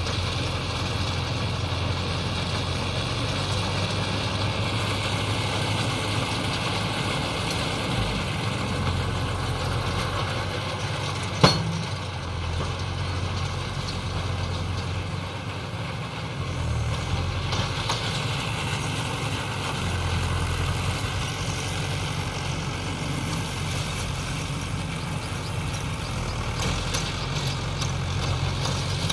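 Mahindra Yuvo 575 DI tractor's diesel engine running steadily, with a single sharp click about eleven seconds in.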